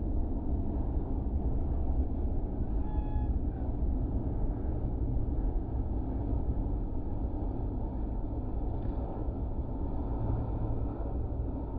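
Korean Air Boeing 777-300ER's GE90 jet engines giving a steady low rumble as the airliner comes in to land.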